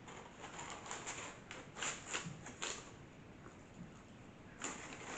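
Faint crackling and clicking of a burger being eaten from its paper wrapper: the wrapper crinkling as the burger is handled, mixed with chewing. The clicks cluster in the first three seconds, ease off, and pick up again near the end.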